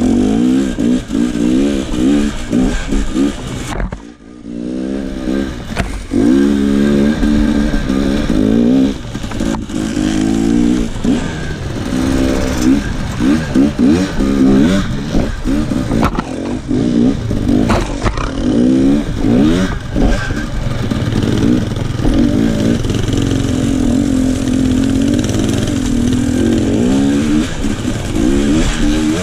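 KTM enduro motorcycle engine running under constantly changing throttle as it is ridden along a trail, its pitch rising and falling every second or so. There is a brief sharp drop in level about four seconds in.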